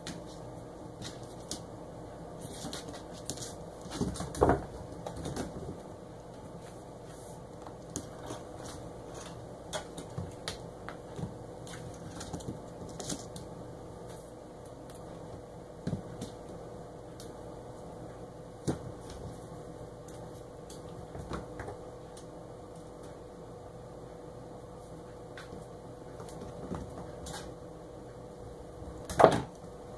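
Kittens playing on a hard floor: scattered light taps and scuffles of paws and a toy, with a few louder knocks, the loudest about four seconds in and again near the end, over a steady background hum.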